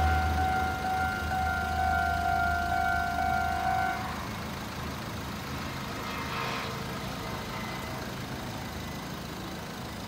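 Level crossing warning signal sounding as a steady two-tone ring that stops about four seconds in, over the low engine rumble of a railway catenary maintenance car that fades as it moves away. A quieter engine hum stays on after the signal stops.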